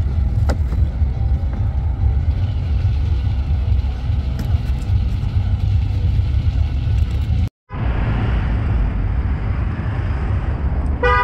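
Steady low outdoor rumble with road-traffic noise. The sound cuts out for a moment about seven and a half seconds in and returns as traffic noise on a bridge. A vehicle horn toots at the very end.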